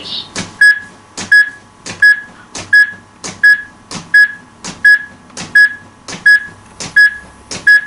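HeartSine AED sounding its CPR metronome: a short single-pitched beep repeating evenly, about three beeps every two seconds, to pace the chest compressions.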